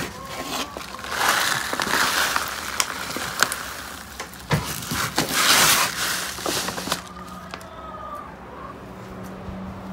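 Chicken grit poured from a bag into a plastic scoop of feed: a dry, gritty hiss of grains with small clicks, in two pours, the second louder, then dying away.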